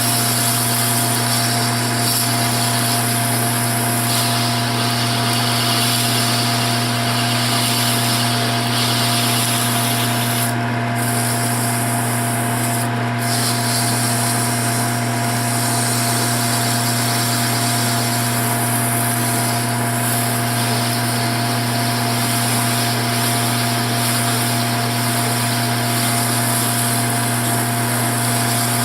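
Lathe running steadily with its motor hum while 240-grit sandpaper rubs against the spinning workpiece, giving an even hiss over the hum.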